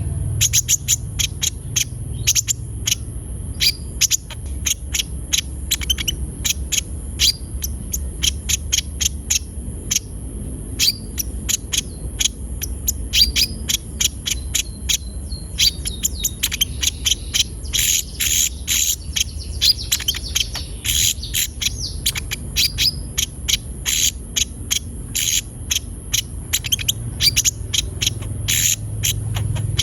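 Konin (sunbird) song: a fast, continuous run of short, sharp high chirps, densest about midway. A steady high-pitched drone runs underneath.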